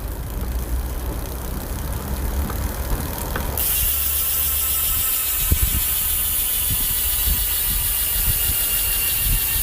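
Koozer XM 490 bicycle hub ticking as the wheel turns, the noise the hub has started making. A steady hiss sets in abruptly about three and a half seconds in.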